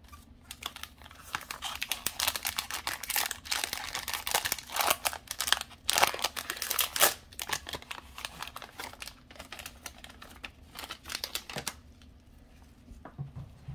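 Plastic wrapper of a football trading-card pack crinkling and tearing as it is ripped open by hand. The crackling is dense and irregular, loudest midway, and dies down near the end.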